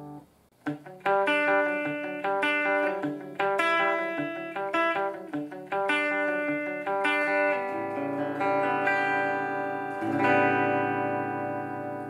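Clean electric guitar through a ZT Amp Lunchbox amplifier: after a short break about half a second in, a phrase of separately picked single notes, settling into ringing, sustained chords about ten seconds in.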